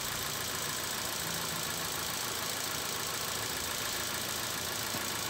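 Ford EcoSport engine idling steadily while it warms up, so the spark plugs can be taken out of the warm cylinder head without snapping.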